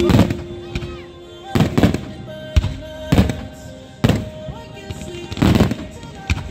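Fireworks display: aerial shells bursting in a string of sharp bangs, roughly one a second, with crackle between them, over music playing.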